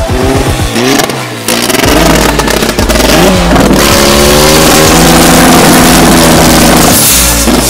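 Turbocharged drag car engine revving: quick rises and falls in pitch at first, then held at high revs for about five seconds, with a brief dip near the end.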